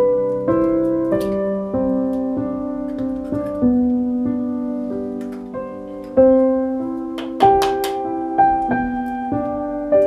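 Slow, gentle solo piano music, single notes and chords that strike and ring out as they fade.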